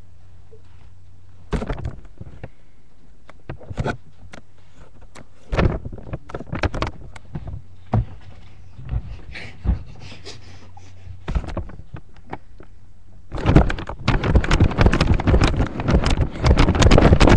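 Handling noise on a webcam microphone: scattered knocks and bumps over a low hum, then about thirteen seconds in a dense, loud rubbing and crackling close on the microphone as the camera is moved about.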